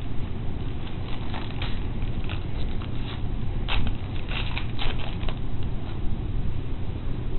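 Hockey card pack being opened and handled: foil wrapper crinkling and cards rustling in short bursts, busiest around the middle. A steady low hum runs underneath.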